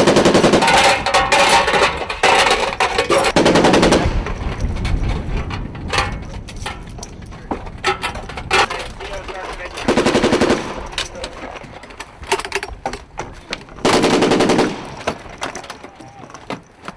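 M240B 7.62 mm machine guns firing bursts of automatic fire: two long bursts in the first four seconds, then shorter bursts about ten and fourteen seconds in. Scattered sharp clicks come in between.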